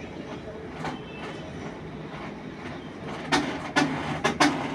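Haier top-loading automatic washing machine running with a steady hum, then a quick series of sharp knocks about three seconds in.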